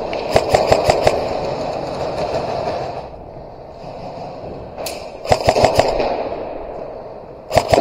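Airsoft guns firing short rapid bursts of about seven or eight shots a second, echoing: one burst near the start, a single shot and another burst about five seconds in, and a short burst near the end.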